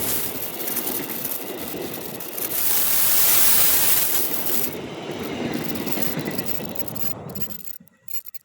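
Train passing close by: a loud, steady rush of wheels on rails with rapid clatter, dying away to near silence near the end.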